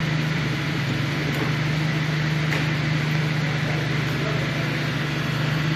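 Lifted Jeep Cherokee's engine running steadily at low revs as it crawls over rocks.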